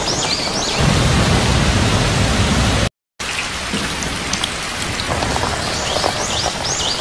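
Heavy rain pouring down, an even hiss throughout. About a second in a deep low rumble joins it, and the sound cuts out for a moment near three seconds in.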